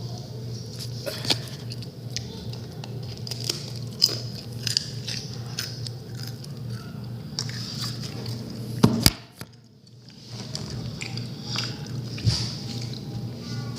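Irregular crunching and crackling, many small sharp clicks over a low steady hum. There is a louder crack about nine seconds in, followed by about a second of near quiet.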